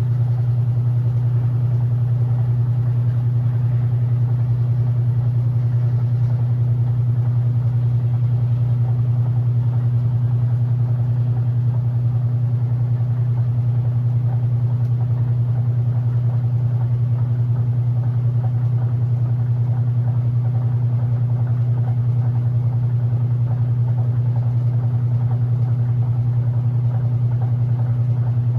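Electrolux LE06DBD top-load washing machine running with a steady, even hum that does not change.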